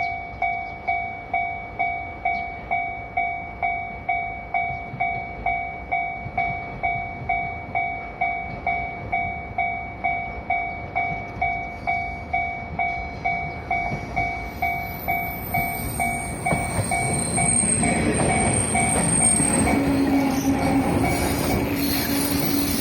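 Japanese level crossing warning bell ringing steadily, about two strikes a second. About two-thirds of the way through, a JR 103 series electric train arrives and passes over the crossing. Its running noise, with brief high squeals, builds up and drowns the bell.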